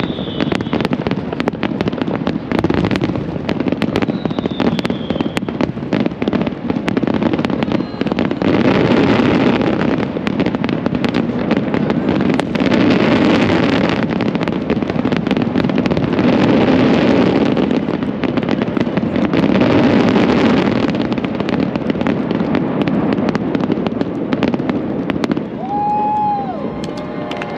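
Fireworks show in a dense barrage: continuous rapid crackling and popping, swelling into heavier waves of bursts every few seconds.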